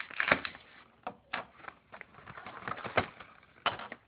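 Plastic toy packaging being handled: a run of irregular clicks and short crinkles, with louder snaps near the start and about three seconds in.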